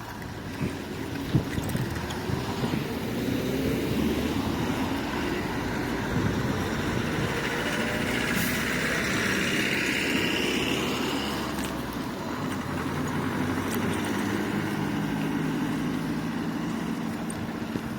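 Road vehicle running, engine and road noise: the engine's pitch rises over the first few seconds and later settles to a steady hum.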